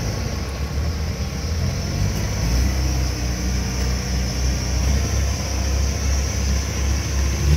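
Kubota DC70 combine harvester's diesel engine running steadily, a low hum that grows a little louder about two and a half seconds in.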